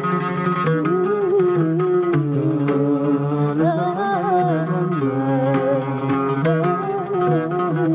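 An oud is played with an accompanying ensemble in the instrumental introduction to an Arabic song. A sustained, wavering melody line carries over the oud.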